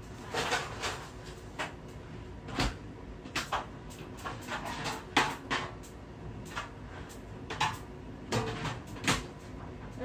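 Kitchen clatter from a baking tray being handled: a dozen or so separate knocks and clicks.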